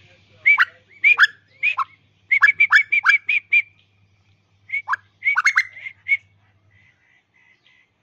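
Male Asian koel calling: a run of short, sharp notes, many dropping steeply in pitch, with a fast series of about seven notes in the middle. The calls trail off to faint notes near the end.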